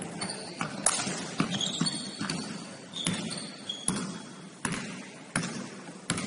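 A basketball being dribbled on a hardwood court, a bounce about every three-quarters of a second, with short high squeaks of sneakers on the floor between bounces.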